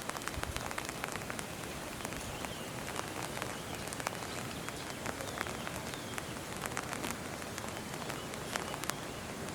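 Rain falling: a steady hiss with many scattered drop ticks.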